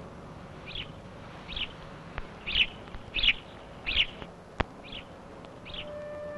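A small bird chirping over and over, one short chirp about every three-quarters of a second, with a single sharp click about four and a half seconds in. Soft woodwind music comes back near the end.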